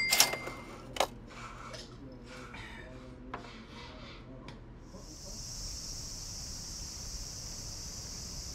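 Ceramic dishes clink together twice right at the start, with a brief ringing, and there is another knock about a second in. A faint murmur follows. From about five seconds in, a steady high-pitched insect drone comes from trees.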